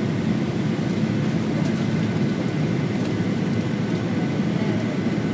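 Airliner cabin noise while descending to land: a steady low rumble of engines and rushing air, with a faint steady whine above it.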